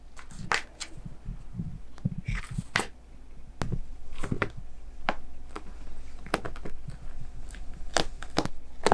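Scattered sharp clicks and crackles, about ten at irregular intervals, from a cat playing with a wand toy on the floor, over a faint steady hum.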